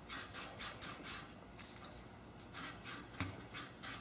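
Emery paper stuck to a valve rasping against the exhaust valve seat of a Briggs flathead small engine as the valve is twisted back and forth by hand to clean the seat. The short scrapes come about three a second, with a pause about halfway through.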